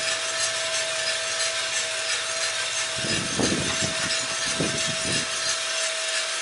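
Coffee beans tumbling in the rotating drum of a Cormorant CR600 gas coffee roaster, a steady hiss with a steady machine hum, in the Maillard phase before first crack. About three seconds in, the sample trier is pulled out and pushed back through the beans, a few seconds of scraping.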